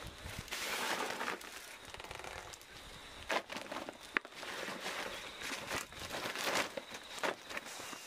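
Woven plastic sack rustling and crinkling as it is handled and packed, in uneven bursts, with one sharp click about four seconds in.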